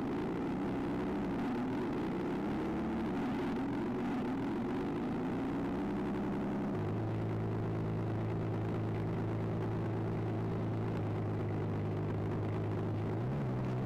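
Onboard scale-sound system (GhostFiles sound samples through a Benedini amp and board) in an electric RC P-51 Mustang model, playing a simulated Merlin warbird engine sound. The engine note wavers at first, then about seven seconds in settles into a steady, deeper drone.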